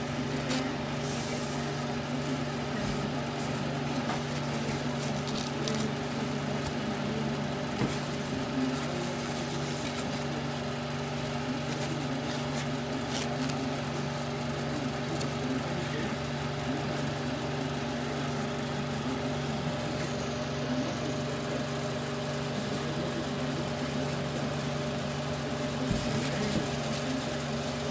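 Sponge scourer ultrasonic welding and cutting machine running: a steady mechanical hum with a few scattered faint clicks.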